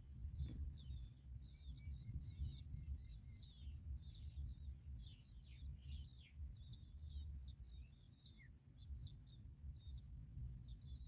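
Small birds giving many quick, high chirps one after another, over a low rumble.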